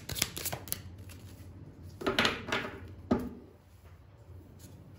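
Tarot cards being shuffled by hand, a quick run of papery clicks, followed about two and three seconds in by two louder swishes of cards being drawn and laid on the table.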